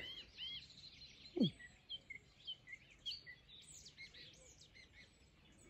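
Several small songbirds chirping and singing, faint, with many short high chirps and whistles overlapping. About a second and a half in, one brief sound slides quickly down in pitch.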